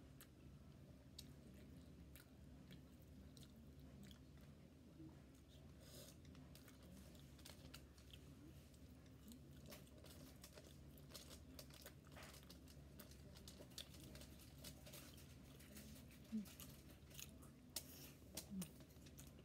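Faint chewing and mouth sounds of a person eating stewed conch and rice by hand: scattered small wet clicks and smacks over a low steady hum, with a few louder smacks in the last few seconds.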